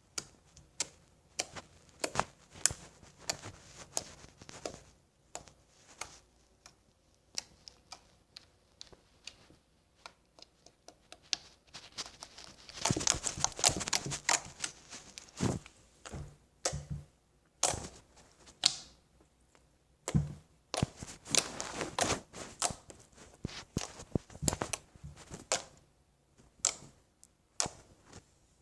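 Stretchy glue slime being squished and poked by hand, giving irregular sharp clicks and small pops, with denser crackling runs about halfway through and again about two-thirds of the way in.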